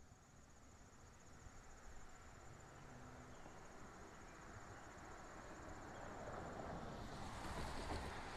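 Insects trilling, a faint, steady, finely pulsing high note, while a low rushing noise slowly grows louder and takes over near the end.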